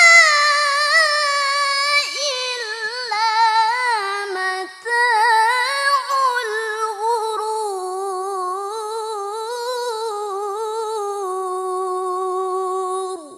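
A young woman's solo Qur'an recitation in the melodic mujawwad style, her voice sliding through ornamented, wavering phrases. After a quick breath about five seconds in, she holds a long note that slowly falls in pitch and stops near the end.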